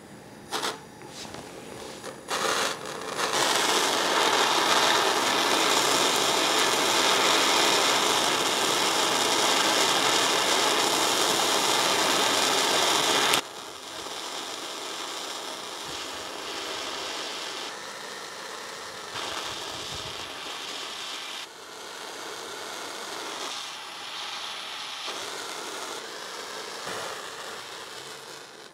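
Hose-fed gas torch burning with a steady hiss as it heats a copper pipe fitting for soldering. The hiss comes up loud about three seconds in, drops off abruptly about halfway through, and then carries on much quieter while solder is fed into the joint.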